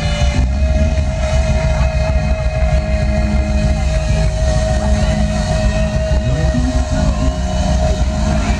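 Live R&B band playing a long held note over heavy, rumbling bass, which slides about two-thirds of the way through.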